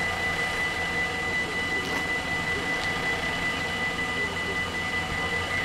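Dutch level-crossing warning bells (AHOB half-barrier crossing) ringing continuously as a high steady ringing, with the barriers down ahead of a train. A low steady hum of waiting cars' engines idling lies beneath.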